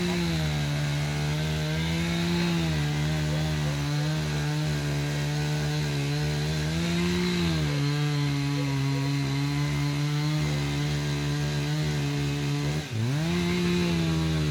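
Two-stroke chainsaw running at steady high revs while cutting through a eucalyptus trunk. Its note lifts slightly a few times, and near the end the revs drop sharply for an instant, then pick straight back up.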